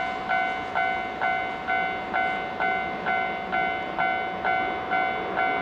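Japanese railway level-crossing alarm ringing: an electronic bell repeating about twice a second in an even, steady rhythm.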